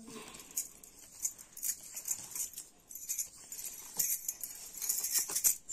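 Plastic comb dragged through long, wet, tangled hair in quick repeated strokes, a scratchy rasp about twice a second, with glass bangles clinking on the combing arm.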